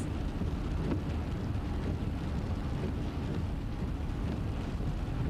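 Van driving, heard from inside the cabin: a steady low rumble of engine and road noise.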